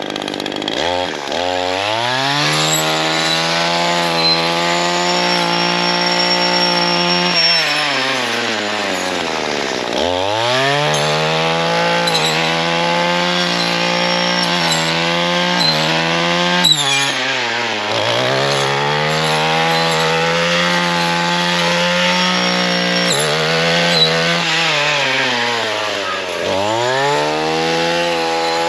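Gas two-stroke string trimmer with a gear-reduction saw-blade head running at high revs while cutting brush. Three times the throttle is let off, and the engine note falls and climbs back up. A few sharp ticks sound over it.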